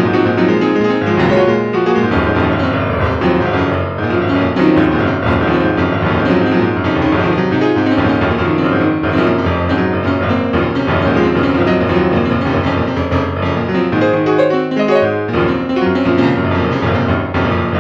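Background music led by piano, playing steadily.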